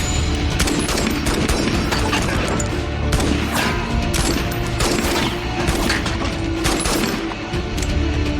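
Rapid, sustained gunfire with many sharp shots and impacts, over a loud orchestral film score holding a low note.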